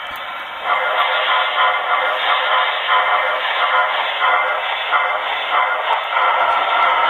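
HO scale Pennsylvania steam locomotive's sound decoder playing through its tiny onboard speaker: a bell ringing in regular strokes about twice a second, starting about a second in, giving way to a steadier, louder sound near the end.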